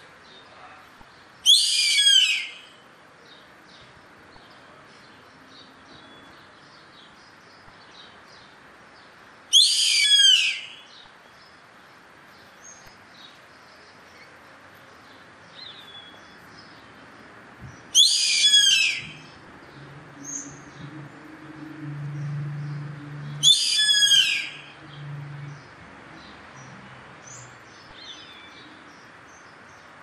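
Yellow-headed caracara calling: four loud descending cries, each about a second long, over faint chirping of small birds.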